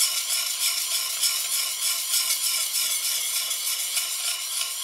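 Steel plane iron honed on a 400-grit diamond sharpening plate: a steady, hissy scraping of quick back-and-forth strokes. Pressure is held on one side of the bevel to put a slight camber on the edge.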